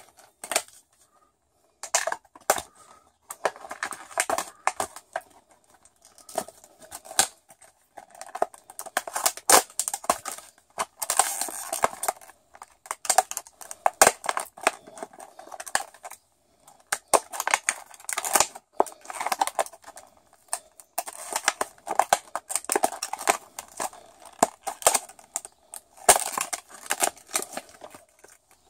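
A diecast toy car's plastic blister packaging being cracked and torn open by hand, in irregular spells of crinkling, crackling plastic and sharp clicks with short pauses between.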